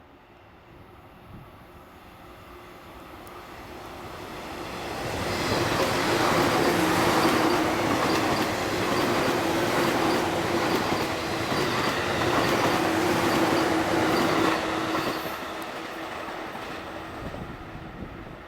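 Electric passenger train passing close by. It builds from about four seconds in, stays loud for about nine seconds with a steady tone running under the wheel and rail noise, then fades away.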